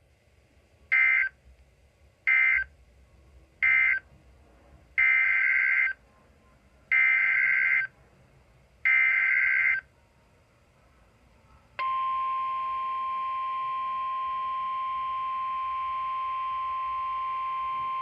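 Emergency Alert System SAME digital data bursts on NOAA Weather Radio, a raspy two-tone buzz. Three short bursts, the end-of-message code closing the warning, are followed by three longer header bursts for the next alert. About twelve seconds in, the steady 1050 Hz weather radio warning alarm tone starts and holds.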